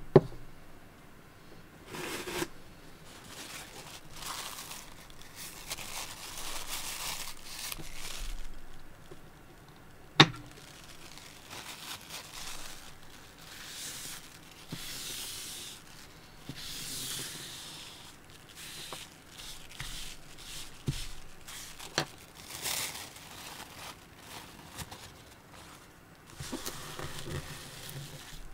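Paper tissue rustling and crumpling in several noisy stretches, broken by a few sharp clicks on a wooden tabletop, the loudest about ten seconds in.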